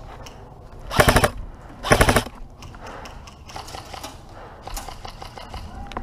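Airsoft M4-style rifle firing two short rapid bursts, about a second apart, each a quick string of sharp clacks.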